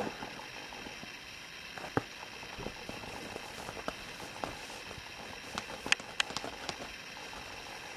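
Soft rustles and small clicks of a young kitten moving about on a fleecy cat-bed mat, over a steady background hiss. A quick run of sharp little clicks comes about six seconds in.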